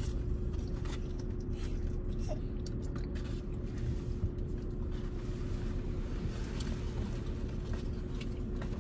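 Steady low hum of a car cabin, the vehicle idling with its air running, with faint light clicks and rustles of paper food trays and containers being handled.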